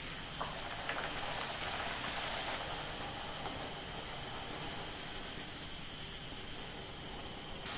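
A poori of wheat dough deep-frying in hot oil in a kadai: the oil sizzles steadily around it, with a few small crackles.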